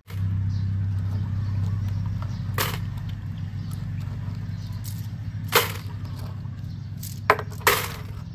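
Coins clicking sharply a few times as stacks are picked up and set down on a wooden plank, two of the clicks close together near the end. Under them is a steady low mechanical hum.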